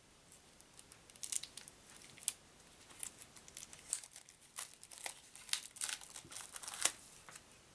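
Plastic wrapping on a deck of playing cards crinkling and crackling as it is handled and pulled off, a rapid irregular run of sharp, high crackles.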